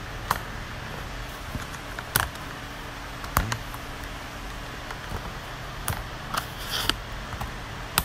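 Handling noise from a smartphone held close to its microphone: about seven sharp clicks and knocks, scattered irregularly, over a steady background hiss.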